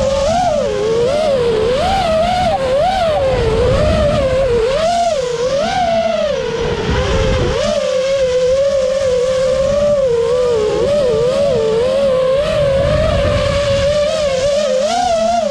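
FPV quadcopter's electric motors and propellers whining, the pitch swinging up and down quickly with throttle changes as it banks and turns. Low rushing wind noise from prop wash and airspeed on the onboard camera's microphone.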